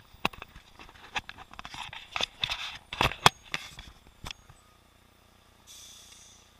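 Irregular clicks and knocks from a helmet-mounted camera rattling in its sealed underwater housing, with street sound almost shut out. The knocking stops a little after four seconds in, leaving only a faint hiss near the end.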